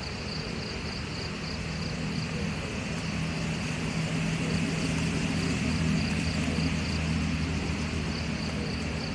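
A distant engine drones low and steady, growing louder toward the middle and fading again as it passes. A pulsing, high-pitched insect chirping runs underneath.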